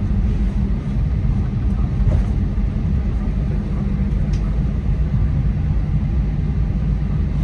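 Steady low rumble of an Airbus A320neo's cabin as the airliner rolls along a wet runway after landing, its engines and tyres droning together, with a couple of faint ticks.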